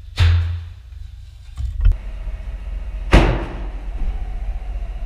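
Barrel-type vortex ring cannon being fired: two sharp thumps about three seconds apart, the first followed by a short low boom, with a smaller knock in between, over a steady low rumble.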